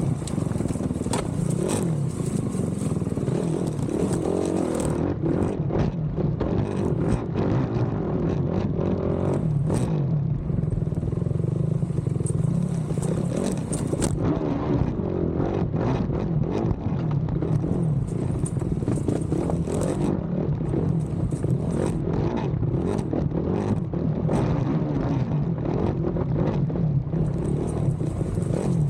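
Racing quad (ATV) engine revving up and down as it is ridden hard, with frequent knocks and clatter from the machine over rough ground.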